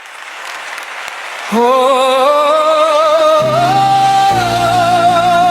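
Worship song intro. An airy swell rises for about a second and a half. Then a voice holds a long wordless note with vibrato that steps up in pitch, and sustained low chords enter underneath a couple of seconds later.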